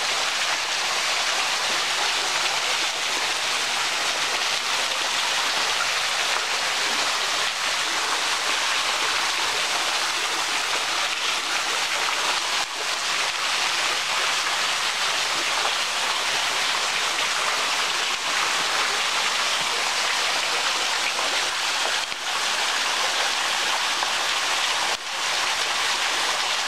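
Bork's Waterfall splashing: a steady, even hiss of falling water, with a few brief dips.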